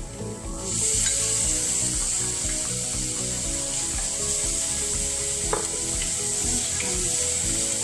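Ground meat sizzling loudly as it goes into a hot pan of frying minced onion, the sizzle jumping up suddenly less than a second in and then holding steady while a wooden spatula stirs it.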